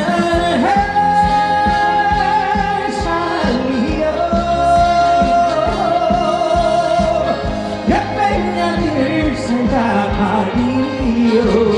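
Live trot song: a male singer holds long notes of the melody over a band backing with a steady drum beat.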